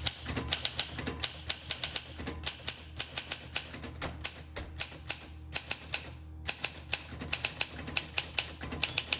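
1962 Olympia SM7 manual typewriter being typed on in a quick, steady run of sharp key and typebar clacks, with a brief pause about six seconds in.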